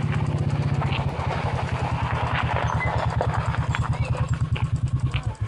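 An engine idling close by with a rapid, even pulsing, cutting off abruptly near the end.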